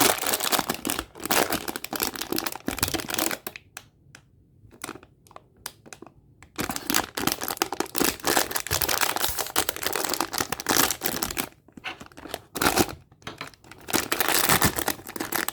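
Blind-box packaging being torn and crinkled open by hand, in repeated rustling bursts with a short lull about four seconds in.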